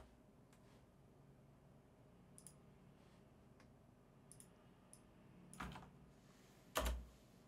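Near silence broken by a few faint clicks, then two louder clicks about five and a half and seven seconds in, from someone working a computer's mouse and keyboard.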